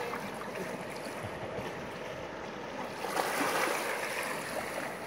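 Small surf waves washing up over a sandy beach: a steady hiss of moving water, with a louder wash swelling about three seconds in and then ebbing.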